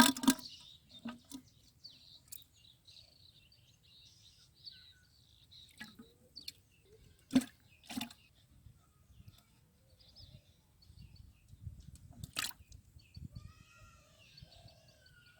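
Birds chirping over a low outdoor rumble, broken by a few sharp knocks or clicks. The loudest knocks come at the very start and about 7 s in, with another strong one about 12 s in.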